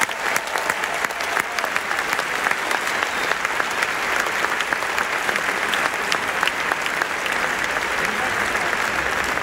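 Large stadium crowd applauding steadily, a dense mass of many hands clapping.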